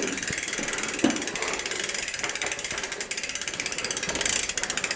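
Rear freewheel pawls of a Mongoose bicycle clicking rapidly and steadily as the wheel and drivetrain turn while the chainring is wiped with a rag.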